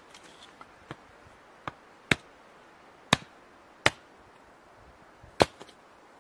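Hatchet splitting firewood on a stump chopping block: sharp wooden chops at uneven intervals, two lighter ones followed by four loud strikes roughly a second apart.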